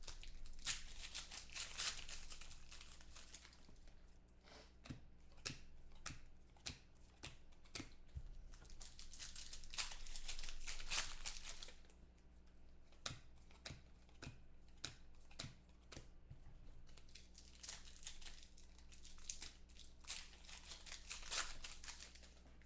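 Foil trading-card pack wrappers crinkling and tearing open in three stretches, with many short sharp clicks in between as the cards are handled and flicked through.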